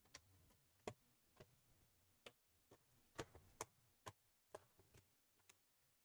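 Faint, sharp plastic clicks, about a dozen at uneven intervals, as the ASUS ROG GL704GW laptop's bottom cover is pressed down and its clips snap into place.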